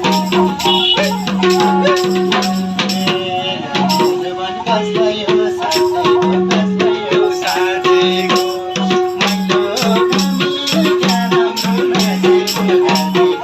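Nepali folk music: a sarangi's wavering bowed melody over fast, steady percussion.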